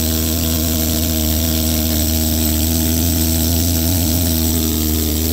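Pneumatic needle scaler running steadily, its needles hammering against a steam engine's crankshaft counterweight to knock off old paint and scale. It makes a loud, even rattle.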